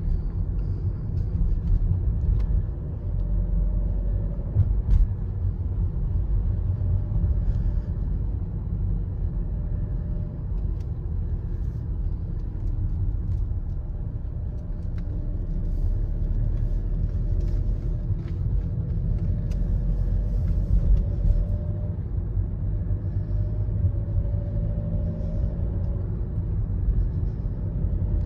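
A car driving: a steady low rumble of engine and road noise, with a few faint clicks.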